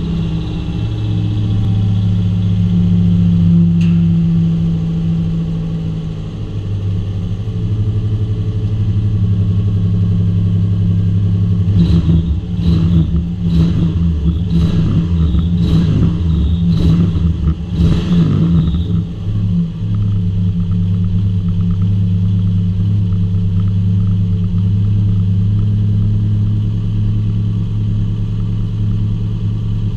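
Subaru EJ25 SOHC 2.5-litre flat-four engine running on its first start after conversion, idling steadily. About twelve seconds in, the throttle is worked by hand in a run of short blips, about one a second for some seven seconds, before the engine settles back to a steady idle.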